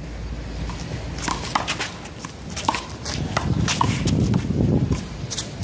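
One-wall handball rally: a string of sharp, separate slaps as the small rubber ball is struck by hand and bounces off the wall and court, with players' footsteps.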